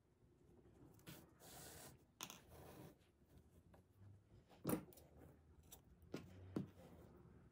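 Faint hand-sewing of a rug edge: wool yarn pulled through the knotted edge with a needle, making soft rubbing swishes in the first few seconds, then a few sharp small clicks about halfway in and near the end.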